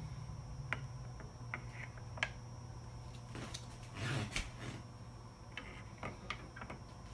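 Scattered light clicks and taps of plastic Dubery sunglasses being handled: the temples swinging on their hinges and the frame set down on a hard desk, with a brief cluster of knocks about four seconds in.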